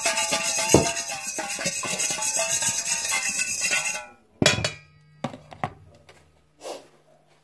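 A utensil clinking and scraping against a bowl as seasoned chicken is mixed by hand, stopping suddenly about four seconds in. A few separate sharp knocks follow, over a low steady hum.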